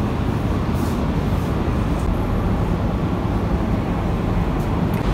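Steady low rumble of a grocery shop's background noise, with a few faint clicks.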